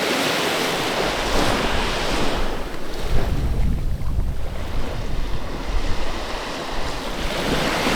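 Sea water washing and lapping in the shallows, with wind buffeting the microphone, heaviest in the middle.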